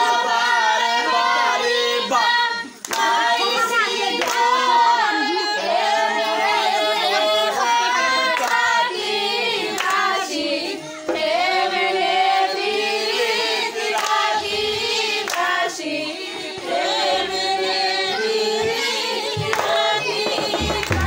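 A group singing a Sylheti dhamail folk song together, with hand clapping keeping the rhythm of the dance.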